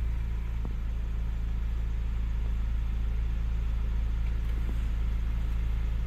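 Ford Bronco engine idling steadily, heard from inside the cabin.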